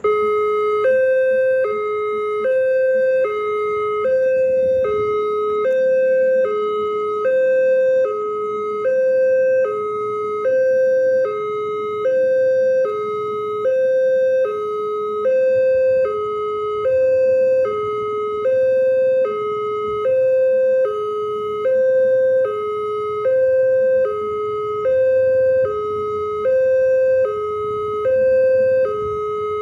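Level crossing warning alarm sounding, an electronic two-tone signal that alternates high and low about once a second, starting abruptly. It signals that the crossing has been activated for an approaching train and the barriers are coming down.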